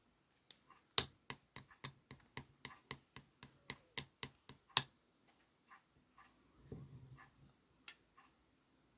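A quick run of sharp clicks or taps, about four a second, lasting about four seconds. Then a few fainter, slower taps follow, with a brief low rumble between them.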